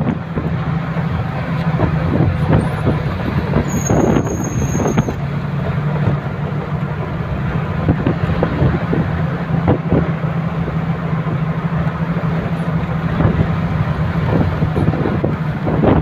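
A road vehicle driving along, heard from inside the cabin: a steady low engine hum with road rumble and frequent rattles and knocks from the rough road. A brief high-pitched tone sounds about four seconds in.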